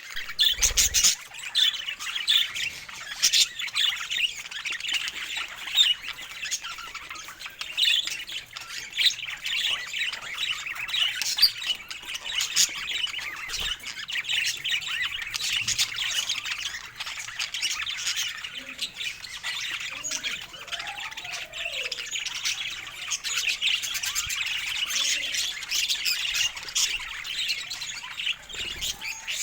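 Budgerigars chattering and chirping without a break, a dense run of quick high warbles, clicks and squawks.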